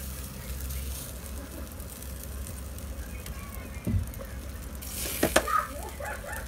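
Chicken pieces sizzling on the wire rack of a portable tabletop grill over a steady low rumble. There is a dull thump about four seconds in, then a quick run of sharp clicks and short higher sounds about five seconds in.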